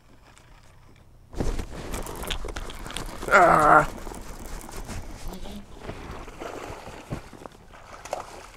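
A small largemouth bass being reeled in on a baitcasting reel from a kayak: a sudden rush of rustling and clicking noise starts about a second in as the fish is hooked, and a short shouted exclamation comes about three seconds in.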